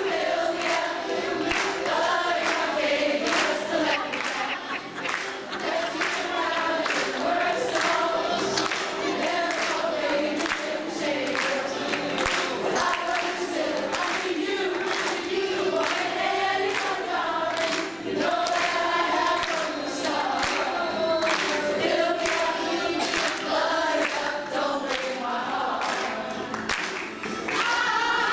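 A group of women singing a song together, led on a microphone, with an audience clapping along.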